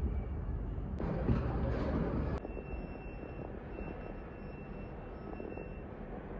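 Steady low rumble of background noise that cuts off abruptly about two and a half seconds in, giving way to a quieter hum with a faint thin high tone.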